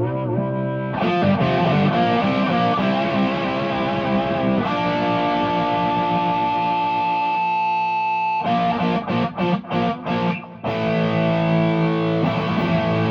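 Warmoth superstrat electric guitar played through distortion and effects: held chords with a wavering vibrato, then a long sustained chord. Just past the middle comes a run of short, choppy muted stops, then ringing chords again.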